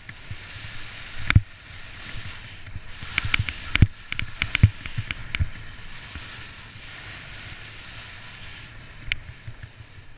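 Snowboard sliding through powder snow: a steady hiss, broken by a dozen sharp knocks and clacks in the first half. Near the end the hiss falls away as the board runs out onto a packed track.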